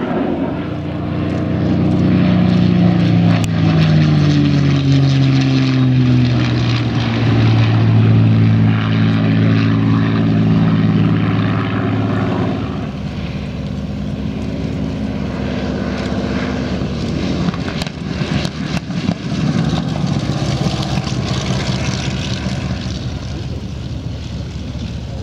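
Spitfire Mk XVI's Merlin 266 V12 piston engine in a flyby, its drone dropping steadily in pitch as the aircraft passes. About halfway through the drone gives way to a quieter, rougher engine noise.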